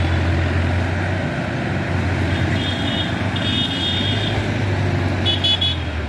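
Tractor diesel engine running steadily under load as it pulls a trolley full of river sand. Short high-pitched beeping tones sound in the middle and again near the end.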